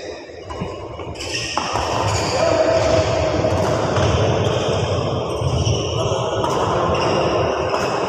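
Badminton doubles rally: players' footsteps thudding on the court and rackets striking the shuttlecock, echoing in a large sports hall. It grows louder about a second in.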